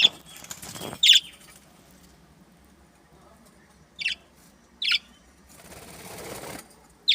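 Birds giving about five short, sharp, high chirps spaced irregularly, with a rustling burst about a second long near the end.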